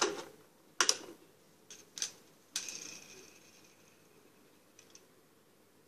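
Sharp plastic clicks from a Pie Face game's mechanism, several in the first two and a half seconds, followed by a brief whirring that fades out about a second later.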